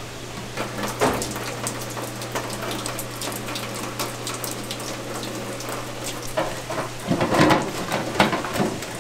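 Open steel steamer of cooked crab: a steady low hum under a hiss and light crackle of escaping steam and dripping condensation, with a few light knocks. About seven seconds in the hum stops and a wire-mesh strainer basket and crab pieces clatter against the steel pan as they are lifted out.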